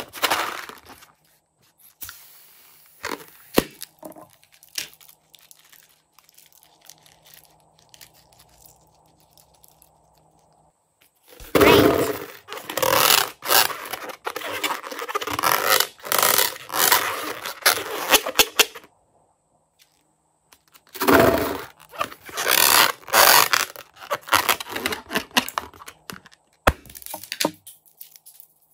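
Hands rubbing and squeezing a rubber balloon close to the microphone: two long spells of dense scraping and crinkling, with a few faint clicks before them and one sharp click near the end.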